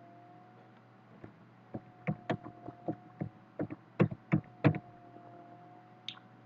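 Computer keyboard being typed on: about a dozen quick key clicks over a few seconds, starting about a second in, over a faint steady hum.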